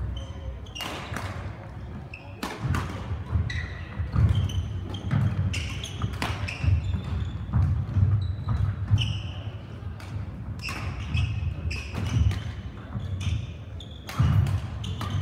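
Badminton play echoing around a large sports hall: scattered sharp racket hits and thudding footfalls on the court floor, with brief high shoe squeaks.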